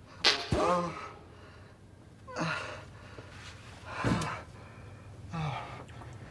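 A young man's strained gasps and groans as he struggles on the toilet, coming in about four short bursts a second or more apart.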